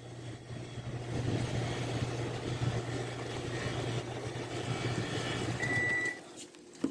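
Microwave oven running with a steady hum while heating tangerines, then a short high beep about six seconds in as the hum stops: the end of the heating cycle.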